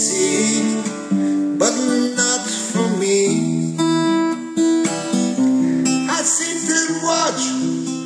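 Music: a strummed and plucked acoustic guitar playing the chords of a slow song.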